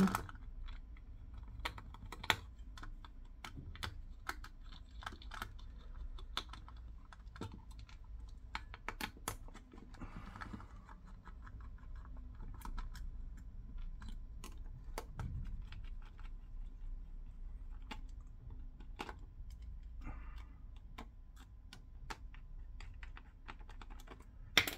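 Irregular small clicks and taps as a T8 Torx driver undoes the four machine screws on a Sennheiser SK300 body-pack transmitter's casing, with handling of the small metal-and-plastic pack.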